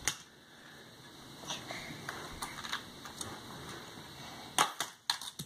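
Light plastic clicks and faint rattling from a Hot Wheels toy track and its die-cast cars being handled, with a few sharper clicks near the end.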